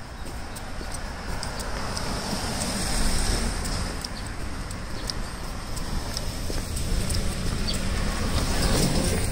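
Road traffic: vehicles passing, the noise swelling about three seconds in and again near the end, with small clicks over it.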